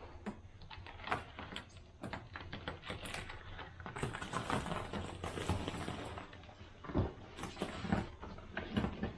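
Irregular light clicks, taps and knocks of objects being handled, with a few heavier thumps about seven and eight seconds in.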